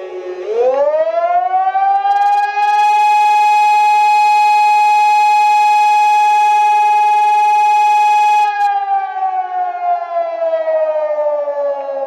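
Bulgarian civil defence warning siren wailing. Its pitch dips at the start, climbs about half a second in to a loud steady tone held for about five seconds, then slowly falls again near the end.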